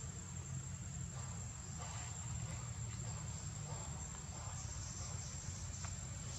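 Insects trilling in one steady high-pitched tone over a low steady rumble, with a few faint short sounds in the middle of the stretch.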